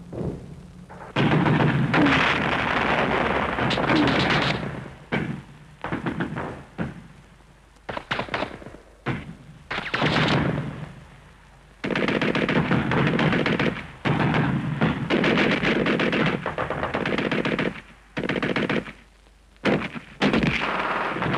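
Machine-gun fire in long, rapid bursts, broken by shorter bursts and brief pauses.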